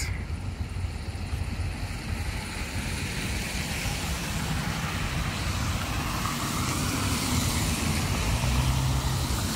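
Steady motor-vehicle traffic noise that swells slowly, with a low engine hum setting in near the end.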